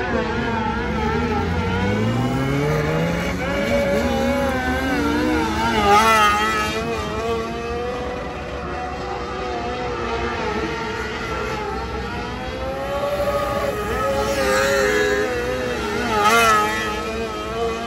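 Several 600cc mini sprint cars' motorcycle engines running at high revs around a dirt oval, their pitches wavering as they lap. One engine climbs steadily in pitch as it accelerates over the first few seconds, and the sound swells as cars pass close about six seconds in and again near the end.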